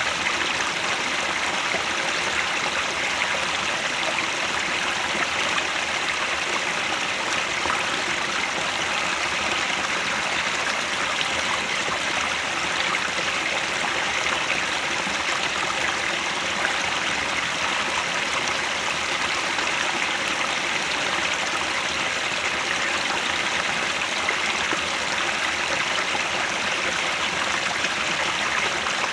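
Headwater stream flowing steadily: a constant, even rush of running water.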